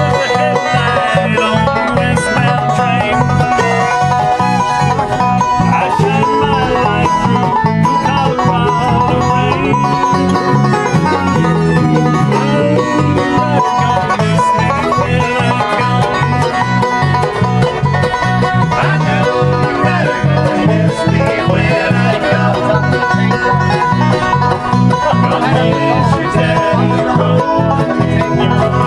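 Bluegrass music with a banjo picking over guitar and a steady beat.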